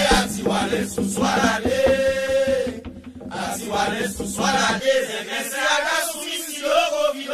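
Haitian Vodou song for the lwa, sung as a chant with one note held for about a second, then a short break about three seconds in before the chanting carries on.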